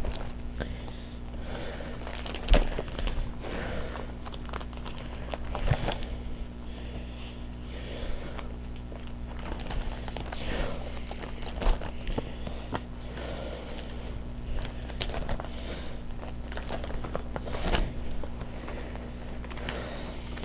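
Pokémon booster pack wrappers and trading cards being handled: irregular crinkling and rustling with scattered light taps, over a steady low hum.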